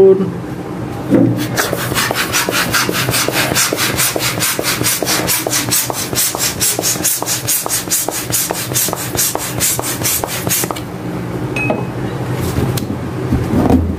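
Latex punch balloon being inflated with an air pump: a fast, even rasping of pump strokes, about four a second, that stops about eleven seconds in.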